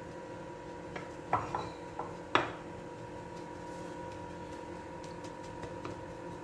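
A few short knocks and clinks against a non-stick frying pan as dry vermicelli is put in and pressed around by hand, the loudest about two and a half seconds in. A steady faint hum runs underneath.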